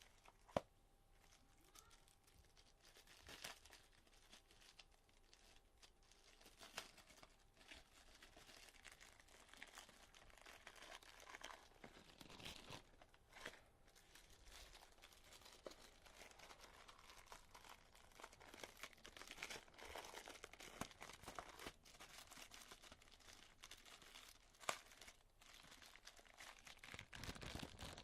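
Faint rustling, crinkling and tearing of packaging being handled and opened, with scattered sharp clicks; the loudest click comes just after the start and another about three seconds before the end.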